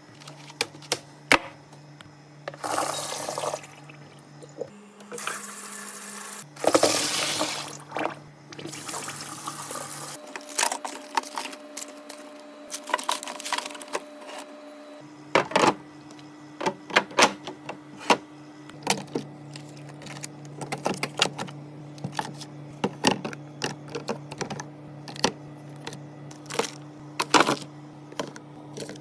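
Food being poured into storage containers in several stretches of a few seconds each in the first ten seconds, with many clicks and knocks of containers, jars and lids being handled and set down. A steady low hum runs underneath.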